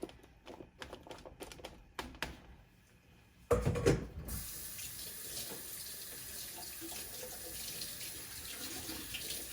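A few light taps of carrot pieces being set on a metal baking sheet, then a loud thump about three and a half seconds in, after which a kitchen tap runs steadily.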